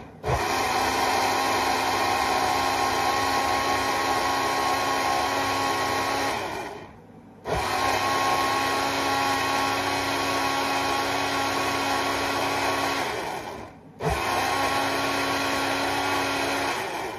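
Countertop jug blender grinding softened tomatoes, onions and spices into a paste. The motor runs three times, about six, six and three seconds, winding down between runs and starting again suddenly.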